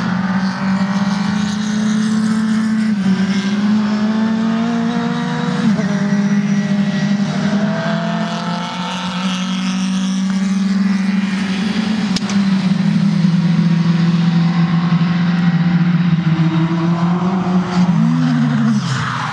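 Single-seater racing car engines running at high revs as the cars lap the circuit, their notes overlapping and gliding up and down with the gear changes. Near the end one car's note swings up and then falls as it goes by.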